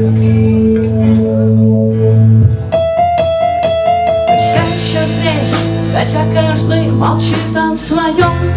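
Instrumental passage of a rock song: held low keyboard chords, then a quick run of bright repeated keyboard notes a few seconds in, and a fuller band with percussion coming in about halfway.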